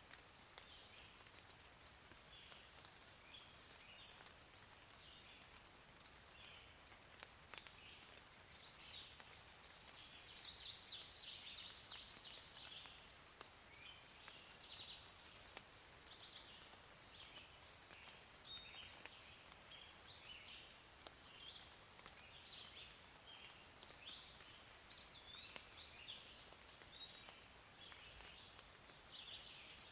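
Birds chirping over a faint, steady hiss of rain. A louder trilling call rises about ten seconds in and again near the end.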